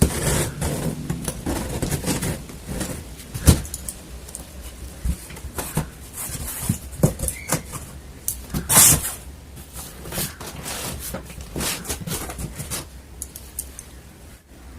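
Packaging being handled during the printer unboxing: irregular knocks and clicks with rustling, and a louder rustling scrape about nine seconds in.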